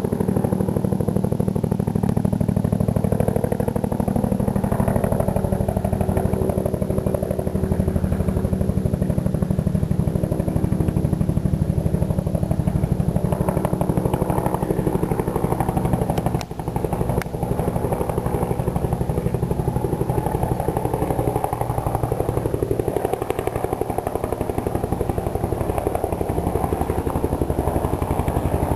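Bell UH-1 Iroquois helicopter in flight, its two-bladed main rotor beating in a rapid, even pulse under the steady turbine sound.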